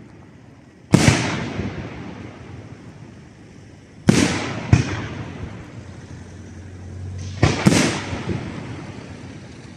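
Aerial firework shells exploding: five sharp bangs, one about a second in, two about half a second apart around four to five seconds in, and a quick pair about seven and a half seconds in. Each bang trails off in a long rolling echo.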